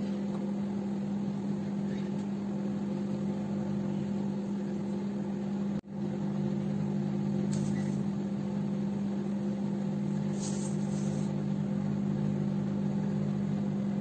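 Hotpoint microwave oven running a 30-second heating cycle, a steady electric hum.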